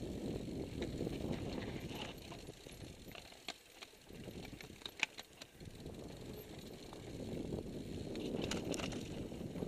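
Mountain bike riding down rocky singletrack: a steady rush of wind and tyre rumble on the bike-mounted microphone, with sharp clicks and rattles from the bike over rocks, the sharpest about halfway through and a cluster near the end.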